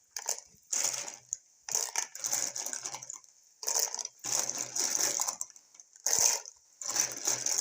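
Wet gandofli clams tipped into a hot pan of frying onions in several goes: repeated short bursts of shells clattering and sizzling.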